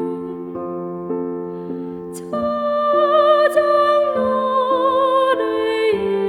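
Gentle background music of slow, held notes; a wavering melody line comes in about two and a half seconds in.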